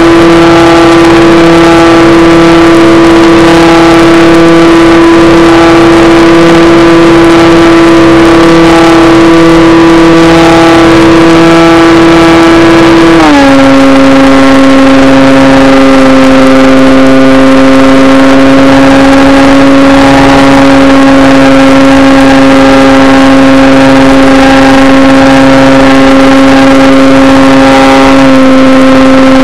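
Electric motor of a Modelhob Escuela model plane in flight, heard through the FPV onboard audio as a loud, steady whine. It drops to a lower steady pitch about halfway through.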